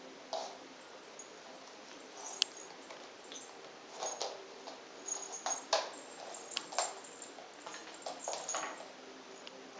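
Small bells on a jester-hat cat toy jingling in short, irregular bursts as kittens bat and tug at it, with light taps of paws and toys on the wooden floor.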